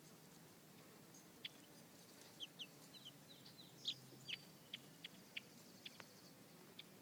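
Two-week-old baby chicks peeping: faint, short, high-pitched chirps scattered irregularly, more than a dozen, over a low steady background hum.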